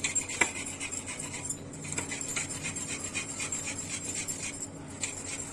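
Fresh ginger being rubbed against a hand grater: a continuous run of repeated scraping strokes.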